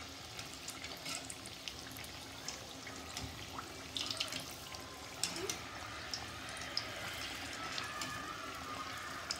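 Banana-dough biscuits deep-frying in hot oil in a kadhai on medium heat: steady bubbling and sizzling of the oil, with scattered sharper crackles.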